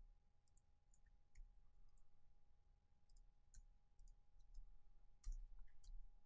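Faint, scattered clicks of a computer mouse and keyboard while text is copied and pasted in a web page editor, a little louder about five seconds in.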